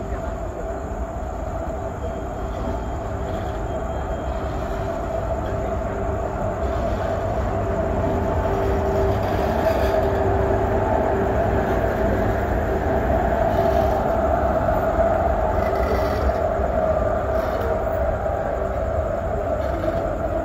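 A train running on the rails: a steady rumble with a steady whine over it, growing gradually louder through the first half and then holding.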